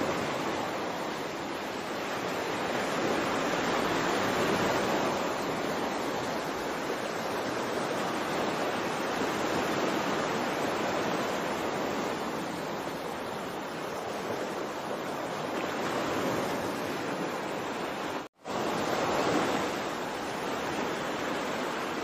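Ocean surf: a steady rush of waves that swells and eases every few seconds. The sound cuts out for an instant about eighteen seconds in.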